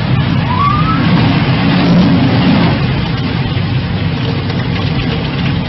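Large storm waves breaking over a sea wall and surging across a road: a loud, continuous rushing roar of surf and spray.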